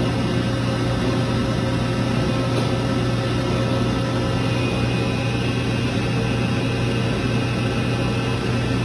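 Hydraulic power unit of a 2007 LVD PPEB 120-ton CNC press brake running with a steady, even hum while the machine cycles.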